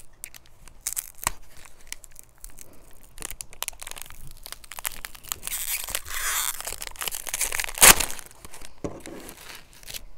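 Booster-pack wrapper crinkling and tearing as it is worked open by hand: many small crackles, a stretch of steady tearing, and one sharp, loud crackle near eight seconds in.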